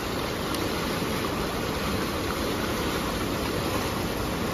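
Fast-flowing creek water rushing and churning in a steady, full roar around a wader, the current strong and turbulent with whitewater.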